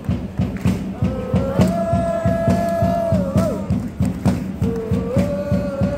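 Background music: a quick, steady beat under long held notes that slide away at their ends.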